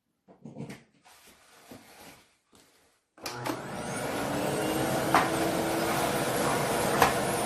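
Aspiron 1600W bagless canister vacuum cleaner switched on about three seconds in: the motor spins up with a rising whine, then runs steadily and loudly. Faint handling sounds come before it, and two brief clicks sound while it runs.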